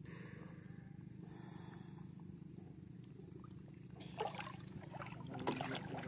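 A steady low rumble, with splashing water from about four seconds in as someone in the water beside the boat works the fishing net.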